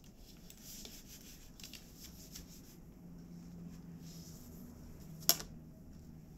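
Hands rubbing and rustling tree-bark fibre threads while weaving on a traditional Ainu backstrap loom, with one sharp knock a little after five seconds in.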